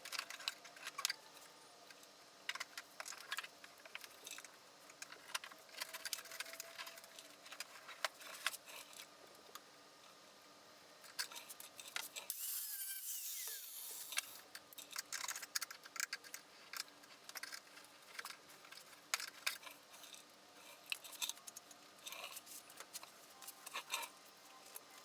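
Hand tools working on the car's rusty body sheet metal: irregular clicks, snips and scrapes of metal, with a short hiss about halfway through.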